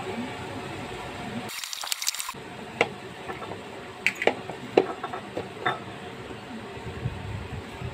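Squelching of raw sliced beef being mixed with cornstarch by a plastic-gloved hand in a plastic bowl, with several sharp wet smacks and clicks. There is a brief hissing rustle about a second and a half in.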